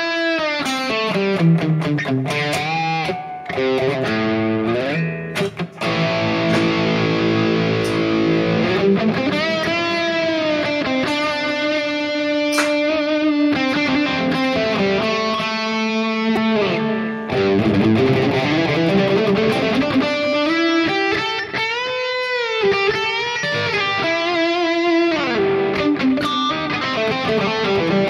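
Electric guitar played through a Headrush Prime modeller's JCM800 amp model with the gain dialled back a little: overdriven lead lines of held notes, with string bends and vibrato, and a couple of short breaks early on.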